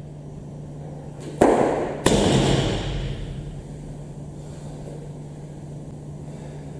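Loaded barbell with bumper plates coming down onto wooden jerk blocks: two heavy thuds about half a second apart, the second followed by about a second of the plates and bar rattling and ringing as they settle.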